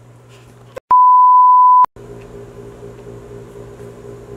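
A loud electronic beep: one steady, high pure tone lasting about a second, starting about a second in with a click and cutting off abruptly. A faint, low, steady hum fills the rest.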